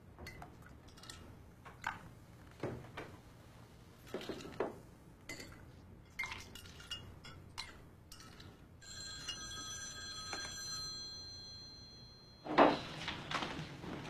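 Scattered light clicks and knocks of kitchen handling, then a landline telephone's bell ringing steadily for about three and a half seconds, starting about nine seconds in. A sudden loud thump cuts in near the end, the loudest sound here.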